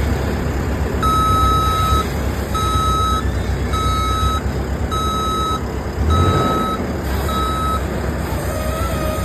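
Backup alarm of a construction vehicle beeping six times, about one beep every 1.2 seconds, over the steady low rumble of its engine.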